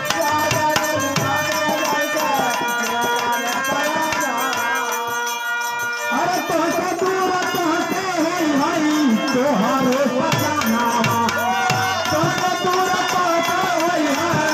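Tabla playing with steady held instrument tones, then a man singing a devotional folk song over the tabla from about six seconds in.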